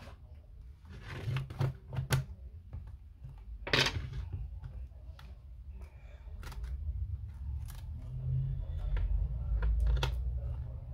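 Clicks, short scrapes and handling knocks of tools and plastic or metal parts as a device is taken apart: a few sharp clicks about a second in, a longer scrape near four seconds, then low rubbing and bumping of parts being handled.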